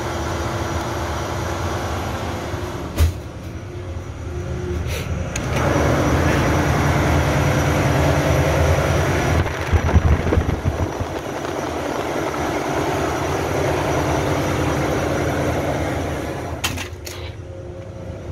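Steady drone of a ship's engine-room machinery, with the diesel generators still running. It grows louder about five seconds in and eases off near the end. A few sharp knocks come near three and five seconds and again near the end.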